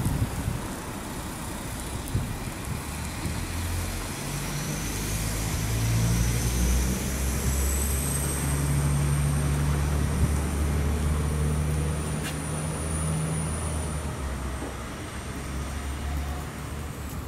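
Diesel engine of an Alstom Coradia LINT railcar (DB class 623) working hard as the train pulls away. The low engine drone swells a few seconds in and changes pitch in steps, with a high whine that rises and then holds, and the whole sound fades near the end as the train draws off.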